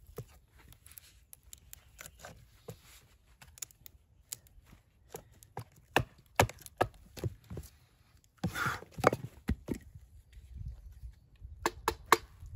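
Axe being wrenched and levered loose from a wooden chopping block: a string of sharp wooden cracks and knocks, with a short rustle about two-thirds of the way through.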